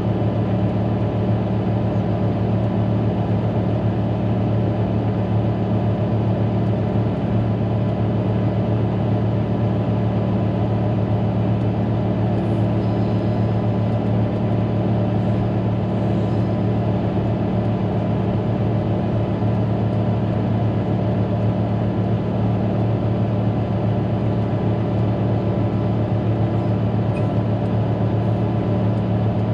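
Caterpillar motor grader's diesel engine running steadily as the machine travels, an even low drone with a faint steady whine above it.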